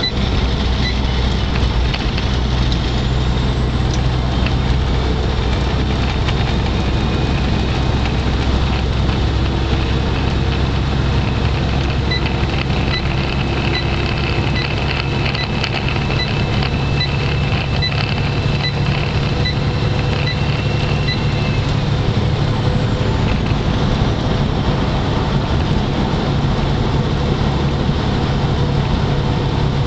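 Steady drone of a truck's engine and road noise inside the cab at highway speed. A turn signal ticks a little over once a second, briefly at the start and again for about nine seconds in the middle.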